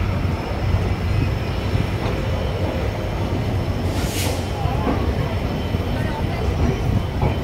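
Passenger train coaches rolling slowly out of a station, heard from an open coach doorway: a steady low rumble of wheels on track, with a brief hiss about four seconds in.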